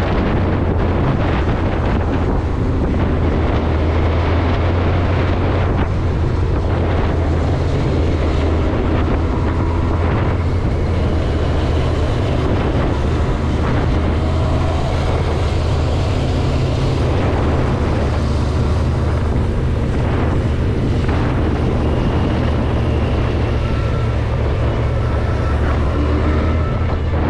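A vehicle on the move: a steady low engine-and-road drone with a constant noise wash, as on a drive, and wind noise on the microphone.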